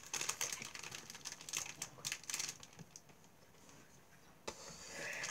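Plastic snack wrapper crinkling and crackling in quick little clicks as it is handled and opened. It goes quiet about three seconds in, then there is one sharp click.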